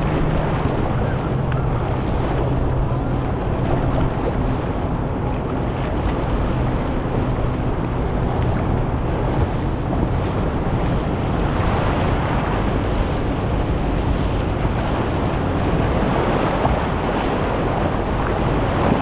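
A large motor yacht running at speed, its engines giving a steady low hum under the rush of its bow spray and wake, with wind buffeting the microphone. The water noise swells a little as the yacht passes closest.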